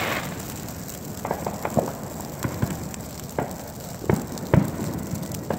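Dry Christmas tree burning in full flame: a steady rush of fire with sharp, irregular crackles and pops from the burning needles and branches, the loudest pops about four seconds in.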